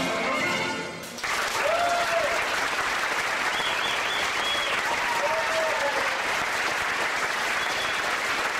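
Charleston music ends with a final note about a second in, then the audience breaks into steady applause with a few whoops.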